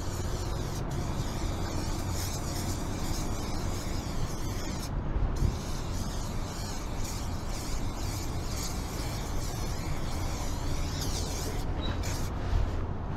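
Aerosol spray-paint can hissing as it paints the steel side of a freight car, the hiss breaking off briefly about five seconds in and again near the end. A low wind rumble on the microphone runs underneath.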